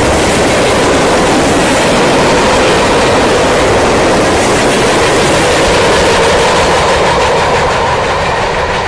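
Loud rolling of freight cars, covered hoppers and tank cars, passing close by: steel wheels running on the rails in a steady, dense rumble that eases off a little near the end as the last cars go by.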